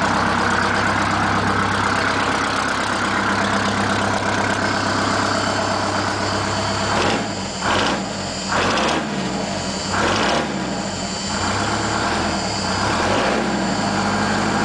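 Ford 9000 semi truck's diesel engine idling steadily, then revved in a series of short blips from about halfway through. It is running smoky after a cold start.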